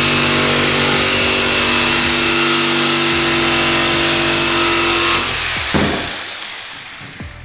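Corded jigsaw cutting through a thin plywood sheet, its motor and blade running steadily for about five seconds, then switched off and winding down. A single knock follows as the saw comes off the board.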